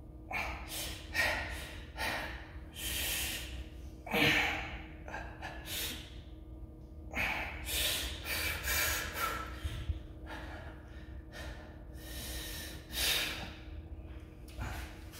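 A man's heavy, forceful breathing under exertion: a dozen or so sharp gusts of breath through the nose and mouth as he strains through heavy dumbbell curls.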